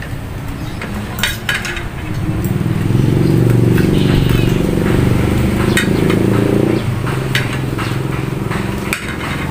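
Metal fork and spoon clinking and scraping on a ceramic plate several times, over a steady low hum that grows louder for a few seconds in the middle.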